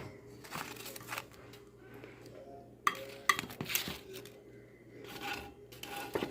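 A few sharp clinks and knocks of a metal utensil against a pot and strainer, the clearest a short cluster about three seconds in, over a steady low hum.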